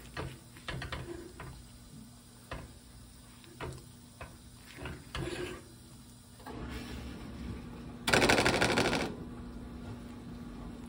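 Serving spoon clicking and scraping against a ceramic baking dish while scooping thick, cheesy baked dip, with irregular knocks and short scrapes. About eight seconds in comes a louder scrape lasting about a second.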